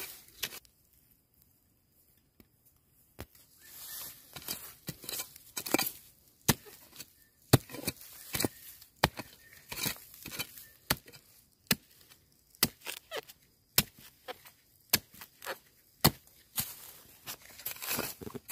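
Bamboo shoots being snapped off and handled: irregular sharp cracks and crackling, starting about three seconds in after a brief quiet.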